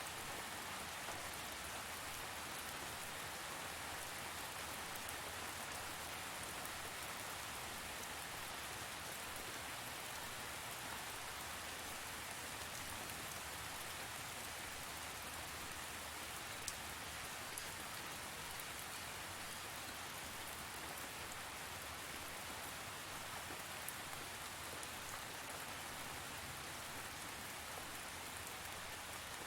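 Steady rain falling on a surface, an even hiss with scattered faint drop ticks.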